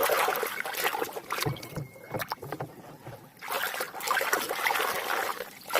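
Water splashing and sloshing as a muddy toy is washed by hand, in two spells with a quieter pause and a few soft knocks in between.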